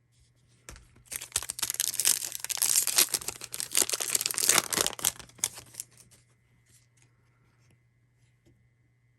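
A trading card pack's foil wrapper being torn open and crinkled by hand. The tearing and crinkling starts about a second in, lasts about five seconds, and then stops.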